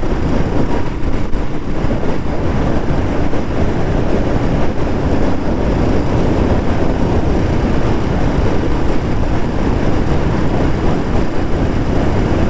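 Royal Enfield Bullet 350's single-cylinder engine and exhaust running steadily while the motorcycle is ridden, mixed with wind rushing over the microphone.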